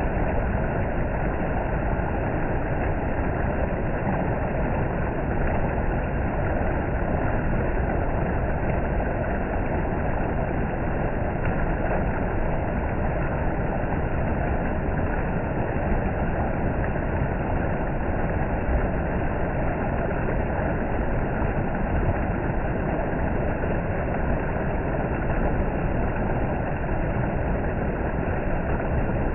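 Creek water running over a low cascade of flat rock ledges into a shallow pool: a steady, unbroken rush.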